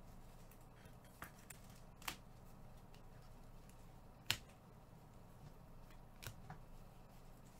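Faint handling of a stack of baseball trading cards in gloved hands: soft slides and a few light clicks as the cards are flipped through, with one sharper snap about four seconds in, over a low steady hum.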